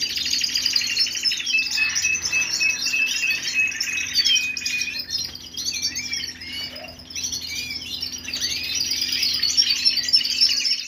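Dense twittering and chirping of small songbirds, with one long steady whistled note held for about three seconds near the start, over a faint low hum; it cuts off suddenly at the end.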